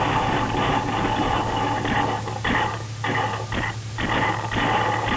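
Rough rustling and knocking from a small gun-mounted action camera jostled as the player moves over dry leaf litter, with irregular knocks over a steady hum.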